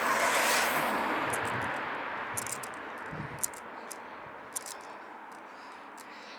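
A passing vehicle's tyre and engine noise, loudest about half a second in, then fading away, with a few light clicks and ticks as it dies down.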